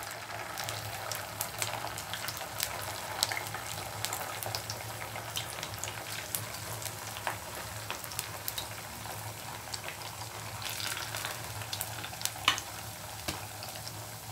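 Potato vadas frying in hot oil in a pan: a steady sizzle full of small crackles and pops. The crackling grows busier near the end, with one sharp click.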